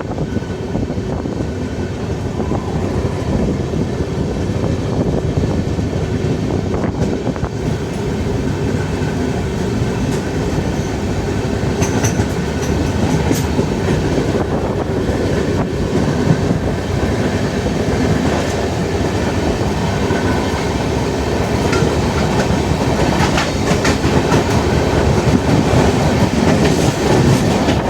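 Indian Railways passenger train running at speed, heard from on board: a continuous rumble with the clatter of wheels over rail joints, growing somewhat louder toward the end.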